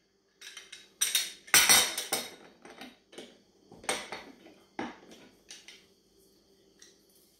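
A handheld hinged citrus squeezer clicking and knocking as it is opened, loaded with fruit halves and pressed, with knocks on the wooden board. The loudest are about one to two seconds in, then sparser clicks that thin out toward the end.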